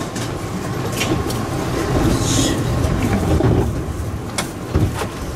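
Interior of a stationary Eizan Electric Railway 'Kirara' train car at a platform: a steady low hum and rumble of the train's onboard equipment, with a few sharp clicks and knocks and a brief hiss about two seconds in.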